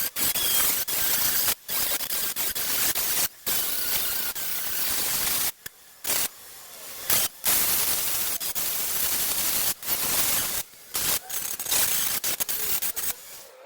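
MIG welder laying short runs of weld on thin car-body sheet steel: a steady crackling hiss that stops and starts, with brief pauses between runs and a longer pause about six seconds in.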